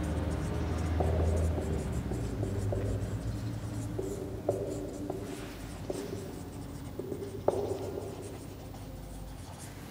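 Marker pen writing on a whiteboard, stroke after stroke, with sharp taps about four and a half and seven and a half seconds in.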